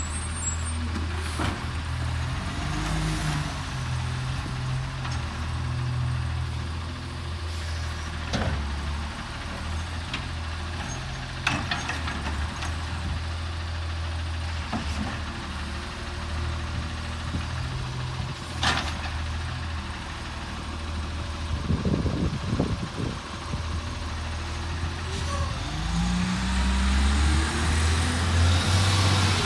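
Automated side-loader garbage truck's diesel engine running steadily while the arm handles carts, with a few sharp clanks. Near the end the engine note rises as the truck pulls away.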